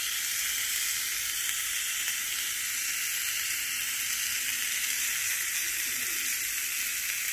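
Thin-sliced bacon sizzling on the hot nonstick plates of a preheated mini waffle maker: a steady hiss while the slices are laid on and arranged.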